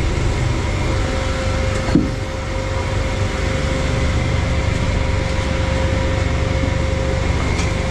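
Steady mechanical background hum over a low rumble, with one short knock about two seconds in.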